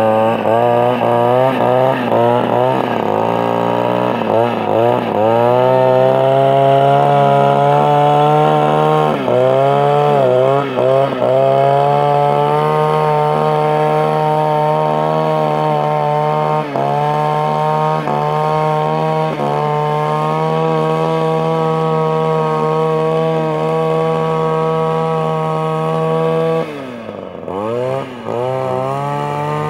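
Echo SRM-250si string trimmer's small two-stroke engine cutting grass. It is revved up and down repeatedly for the first twelve seconds or so, then held at steady high revs with a couple of brief dips. About 27 seconds in it drops to idle, then revs back up.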